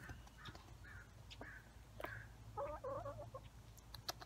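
Backyard chickens clucking softly: a run of short, evenly spaced notes about two a second, then a quick burst of lower, fuller calls about two and a half seconds in, with a few sharp clicks near the end.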